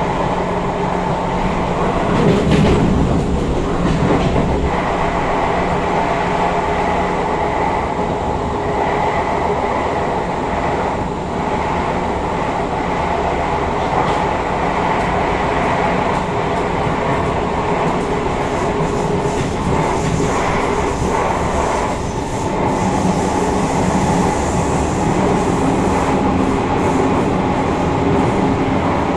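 Kawasaki Heavy Industries C151 metro train running at speed, heard from inside the carriage: a loud, steady rumble with the repeated knock of flat-spotted wheels, so bad that the traction motor cannot be heard over it.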